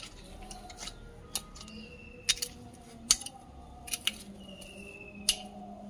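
Metal garden rake scraping and dragging through rotted cow-dung compost and gritty soil, mixing it. Its tines give sharp clicks at irregular intervals, roughly one or two a second.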